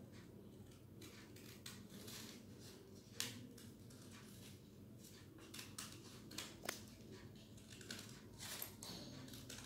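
Small scissors snipping through thin green craft paper in a run of faint, irregular cuts, a couple of them sharper than the rest.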